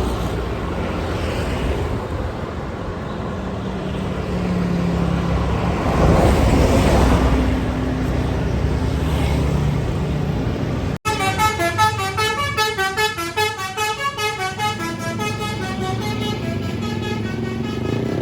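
Buses passing with engines running and road noise for about eleven seconds. Then, after a sudden break, a bus's multi-tone basuri telolet horn plays a fast tune of short notes stepping up and down, several a second.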